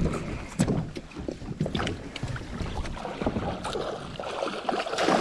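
Water splashing as a hooked musky thrashes at the surface beside a kayak, with irregular knocks and sloshes.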